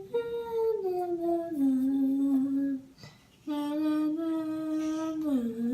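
A girl's voice singing or humming a short tune in long held notes that step down in pitch, in two phrases with a brief pause between them.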